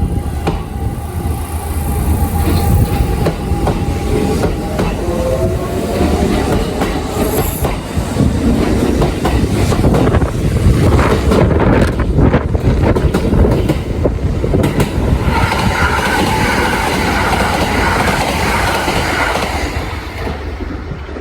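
Kintetsu 1259-series and 1400-series electric train passing close by. A motor whine rises in pitch in the first several seconds, then the wheels clack rapidly over rail joints, and near the end high steady tones ring out over the running noise.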